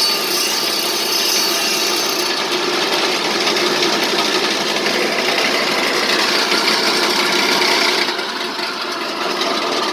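Wood saw driven by a 2.2 kW single-phase electric motor running steadily under test, a loud dense whirr that eases slightly about eight seconds in.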